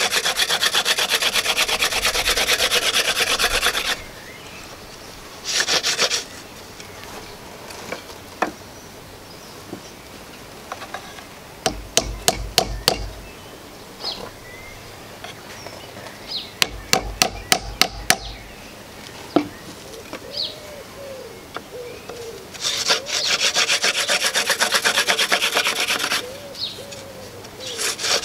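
Elder hand-drill spindle spun back and forth between gloved palms, rubbing in the notch of a wooden hearth board in fast, dense bursts: about four seconds at the start, a brief burst around six seconds, and a longer one near the end. Between the bursts come two quick runs of about half a dozen sharp knocks each, around twelve and seventeen seconds in.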